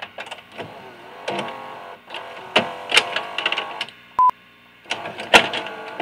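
Choppy electronic glitch sound effects, stuttering and cutting in and out, with a short, high, pure beep about four seconds in.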